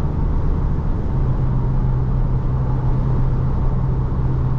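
Cabin noise inside an Isuzu D-Max X-Series pickup with the 1.9-litre turbodiesel, cruising at highway speed: a steady low drone of engine and road rumble. The driver counts it as good sound insulation for a pickup.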